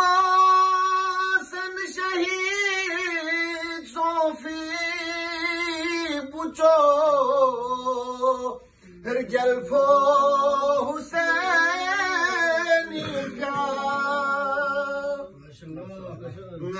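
A man singing a devotional song unaccompanied, in long held, wavering notes, with a short break about nine seconds in.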